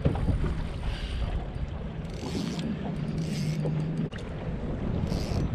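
Spinning reel being cranked in short bursts against a bent rod with a fish on, over a steady rumble of wind and water around the boat; there is a brief sharp break about four seconds in.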